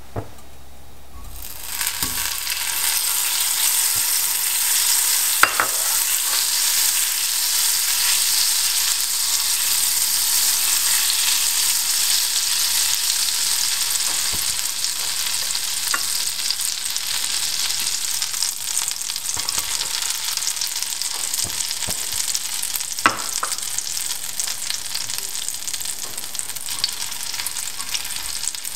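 Butter sizzling in a hot cast-iron skillet: the hiss starts about a second in as the butter hits the pan and goes on steadily as it melts and foams, with a few sharp clicks along the way.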